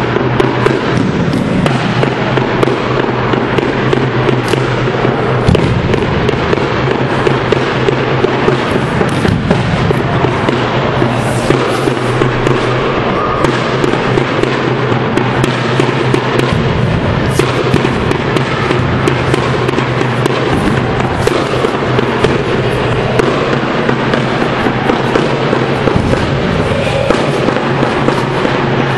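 Loud background music, distorted and overlaid with a constant crackle of sharp clicks, running steadily without a break.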